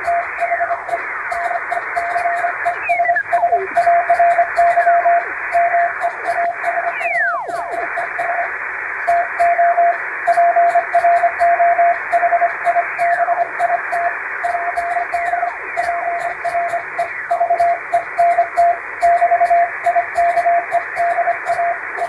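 English-text Morse code sent on a hand telegraph key, heard as a single steady beep keyed in quick dots and dashes. It sits over a band of shortwave-style hiss with occasional falling whistles, added to sound like CW received on a shortwave radio. The sending pauses briefly about eight seconds in.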